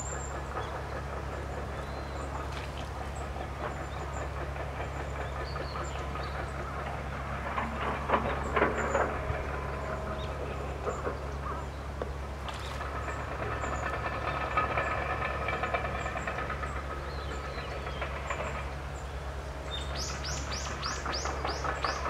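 Steady low mechanical rumble, swelling about eight seconds in and again in the middle of the stretch, with faint short high bird chips over it. Near the end comes a quick run of high, falling bird notes.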